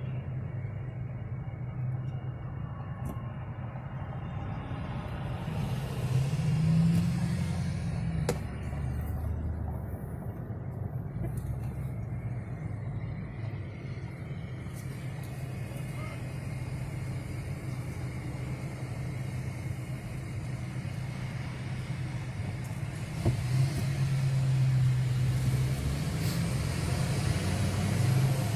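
Car engine heard from inside the cabin, running at low speed: a steady low hum that rises briefly about seven seconds in and again near the end as the car pulls forward.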